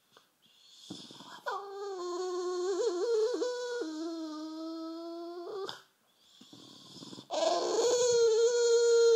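Half-asleep bulldog puppy giving two long, drawn-out whining moans. The first starts about a second and a half in, wavers, then drops lower partway through; the second starts a little after seven seconds in and is still going at the end.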